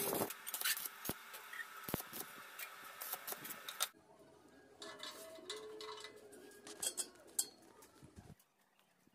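Light metallic clinks and taps of small steel parts being handled and set against a sheet-steel workpiece. About four seconds in it drops to a quieter background with a few scattered clicks.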